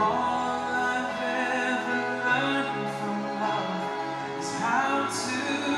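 Live song: a male vocalist sings held, slow melodic lines into a microphone over sustained instrumental accompaniment.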